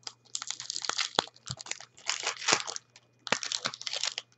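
Shiny foil wrapper of a hockey card pack being torn open and crinkled by hand, in two spells of crinkling with a short pause between them.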